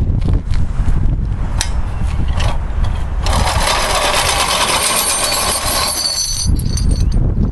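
Hitch-mounted strap reel winding in a yellow flatbed trailer strap. A whirring with a high whine starts about three seconds in, runs for nearly three seconds, and stops suddenly as the strap is taken up, after some handling clicks and low rumble.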